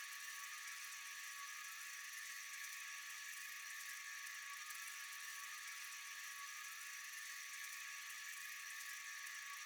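Night insect chorus: a steady, high-pitched buzzing trill from many insects such as crickets or katydids, even and unbroken throughout.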